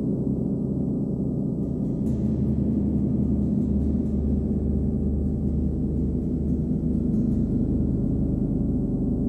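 39-inch Nepalese wind gong played with a hard rubber ball mallet, ringing as a steady, dense wash of overlapping tones with a regular pulsing throb in its deep hum.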